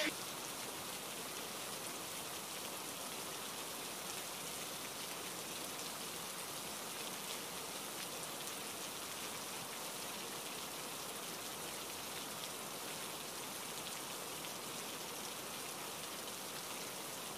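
Quiet, steady hiss with no tone, even and unchanging throughout.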